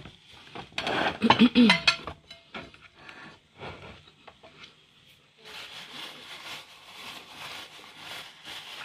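Hands being rubbed and wiped with a cloth: a steady scratchy rubbing that starts about five seconds in. Before it, about a second in, a short loud hum-like vocal sound.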